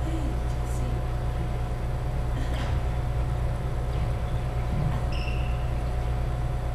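A steady low hum fills the hall, over which a badminton doubles rally is heard: a few sharp racket strikes on the shuttlecock and a short shoe squeak on the wooden court floor about five seconds in.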